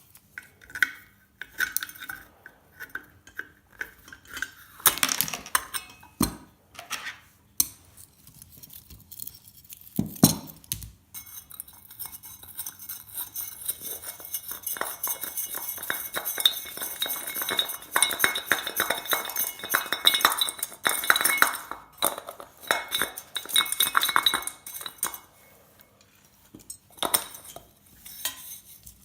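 Metal parts of an old light fitting clinking and knocking as it is dismantled by hand, with a long stretch of rapid metallic rattling and scraping in the middle.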